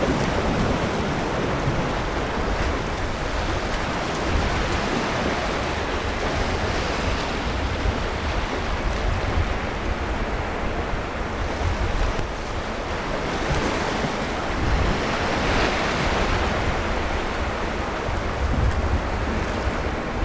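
Sea surf washing onto a beach as a steady wash of noise, with one wave breaking louder a little past the middle.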